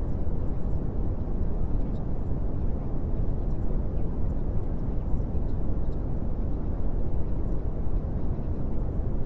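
A steady, low rumbling noise with no pitch or rhythm, even in level throughout.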